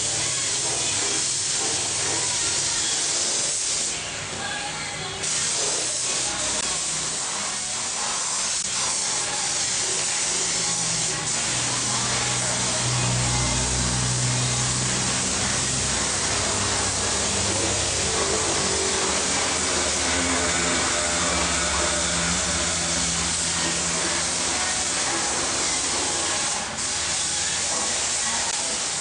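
Air-fed paint spray gun hissing steadily as it sprays paint onto a steel chassis frame, letting up briefly about four seconds in and again near the end. A faint low hum runs underneath through the middle.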